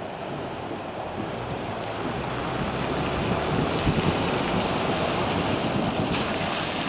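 Strong gusty wind rushing and buffeting the microphone, swelling louder a few seconds in, with a few low thumps at the peak, then easing slightly.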